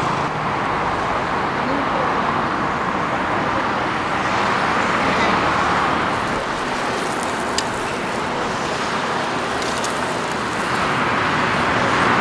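Road traffic passing close by, a steady rush of engines and tyres that swells and fades as vehicles go past. There is one sharp click about seven and a half seconds in.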